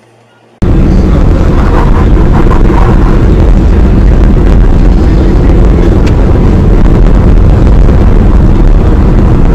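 Loud, steady road and wind noise from a moving vehicle, starting abruptly about half a second in, heaviest in the low end.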